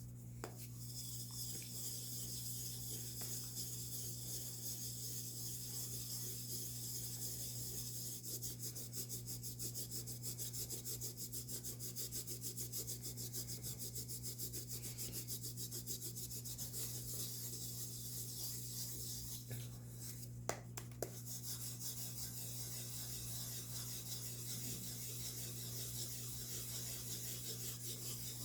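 Baking soda being crunched and crumbled in a fast, steady, grainy scratching and rubbing, over a steady low hum. Two short sharp clicks about twenty seconds in.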